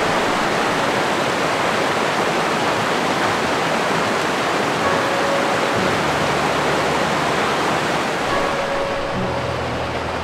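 Steady rush of a fast-flowing mountain creek, with faint background music holding long notes underneath.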